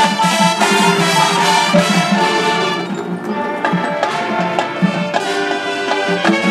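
High school marching band playing: sustained brass chords over drums and front-ensemble percussion. The full sound thins to a softer passage about three seconds in, then builds back up near the end.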